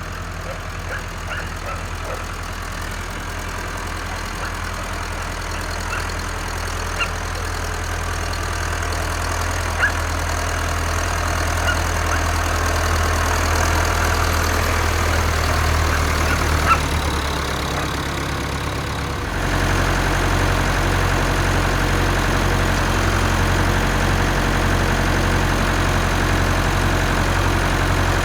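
Tractor engine running steadily and growing louder, then switching abruptly to a heavier, pulsing note about two-thirds of the way through, with a few light clicks over it.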